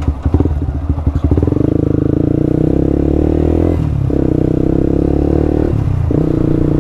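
Yamaha R15 v2's single-cylinder engine running while the bike is ridden, uneven and stuttering for the first second or so, then steady, dipping briefly twice. The rider feels this sputter ("pugak") and blames his charging fault on a failing rectifier, with the voltage at 18–19 V and the engine-check light on.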